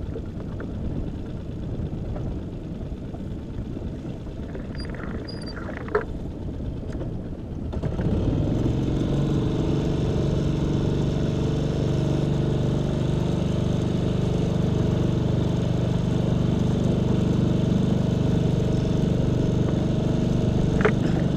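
Small outboard motor on an inflatable boat: a low rumble at first, then about eight seconds in it picks up and runs on with a steady hum, moving the boat at slow trolling speed. A single knock about six seconds in.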